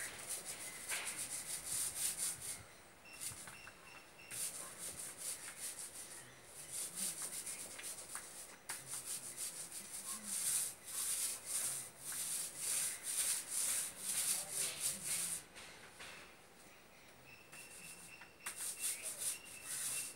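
Paint roller on an extension pole rolling wet paint over a rough, textured wall: repeated rasping strokes, pausing twice.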